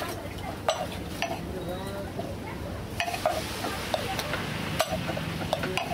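Irregular light taps and clicks of rice-cracker dough being pressed by hand and the raw discs set down on an aluminium plate, over a steady background hiss, with voices faint in the background.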